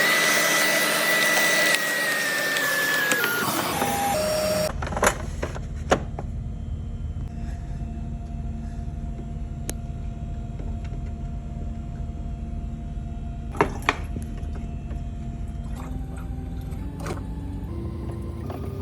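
Automatic bean-to-cup coffee machine running. A loud whirring rises and then falls in pitch over the first four seconds or so, then gives way to a steady low mechanical hum with a few sharp clicks.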